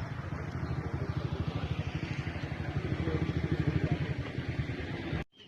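Motorcycle engine running close by with a fast, even low pulse, growing louder, then cut off suddenly near the end.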